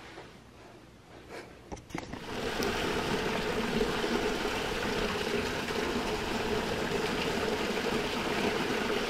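A few faint clicks, then heavy rain comes in suddenly about two seconds in and keeps falling steadily and loudly.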